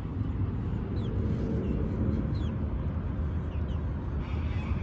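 A steady low rumble with a few short, high chirps from small birds, each falling quickly in pitch, scattered through it.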